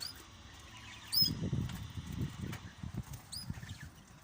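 Small cage birds give three short high chirps, spread across a few seconds, over a stretch of soft low rustling in the middle that is the loudest part.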